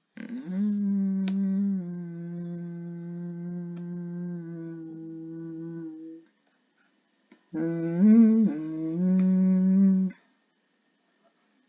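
A person humming two long held notes: the first drops slightly in pitch about two seconds in and is held until about six seconds in; after a short pause a second hum of about two and a half seconds starts with a brief rise and fall in pitch.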